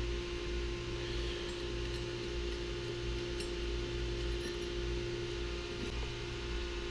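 A few faint metallic clinks from a wrench and nuts as the cover nuts of an armored sight-glass gauge are taken off, over a steady background hum.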